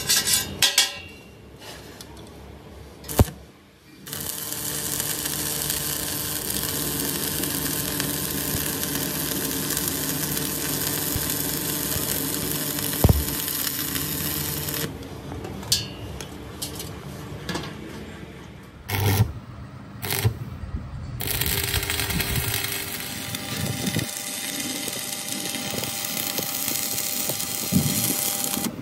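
A few sharp metal knocks on a rolled steel wheel-rim band, then an electric welding arc crackling and hissing steadily on the band for long stretches. The arc stops about halfway through for a few seconds of scattered clanks, then starts again.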